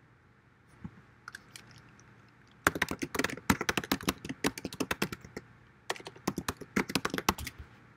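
Typing on a computer keyboard: two quick runs of keystrokes with a short pause between them, after a few single clicks near the start.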